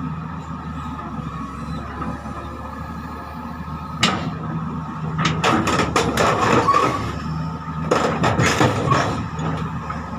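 Hitachi excavator's diesel engine running steadily, with heavy metal clanks and rattling about four seconds in and again through the middle and near the end as the machine is moved off the trailer.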